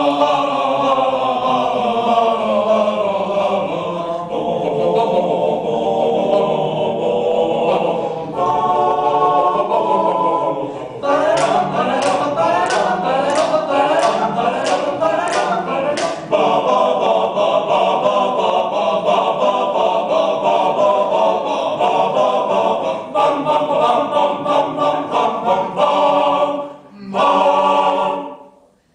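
Choir singing a cappella in several parts, with a quicker rhythmic passage about halfway through. The singing stops abruptly near the end.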